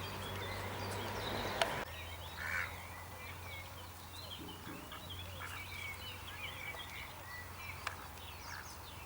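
Outdoor pond bird chorus: many small birds chirping and twittering throughout, over a low steady hum. A rushing noise cuts off suddenly a little under two seconds in.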